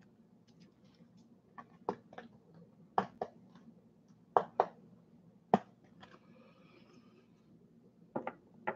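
Topps Chrome baseball cards being handled: short, sharp clicks, several in quick pairs, as cards are flipped and set down, with a faint rustle in the middle and a cluster of clicks near the end as a card is stood up in the display row.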